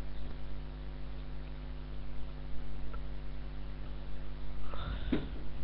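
Steady electrical hum, with a short voice sound near the end.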